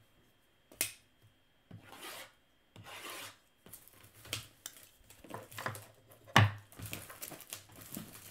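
Cardboard trading-card box being handled and worked open by hand: rubbing and scraping strokes across its surface, with a few sharp clicks and one louder knock about six seconds in.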